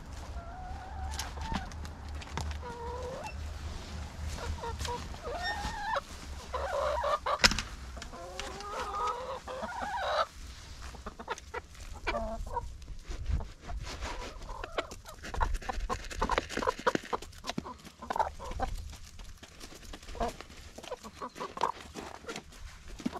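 Backyard hens clucking and calling as food is set down among them, with one sharp knock partway through. After that, the calls give way mostly to a rapid scatter of small ticks as the hens peck at a tray of food.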